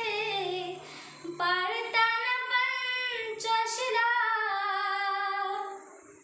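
A young girl singing solo, holding long, wavering notes, with a short breath about a second in and another pause near the end.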